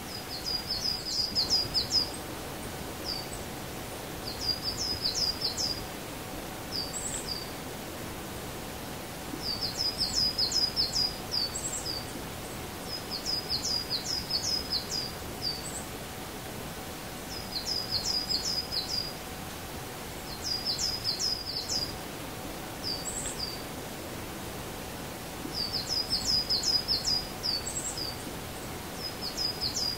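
A small songbird singing, repeating a short, high, rapid phrase about every three to four seconds, with a few single high notes between phrases. A steady outdoor hiss runs underneath.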